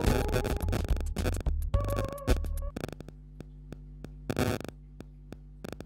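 Electronic music with a heavy bass beat that stops a little under three seconds in, followed by scattered sharp clicks.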